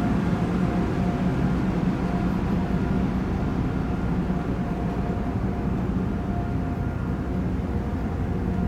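Car ferry under way: a steady low rumble and hum of the ship's engines and machinery, with a faint steady tone above it.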